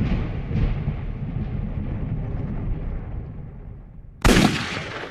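A loud boom that rumbles and slowly fades, then a second sudden hit about four seconds in, which dies away quickly.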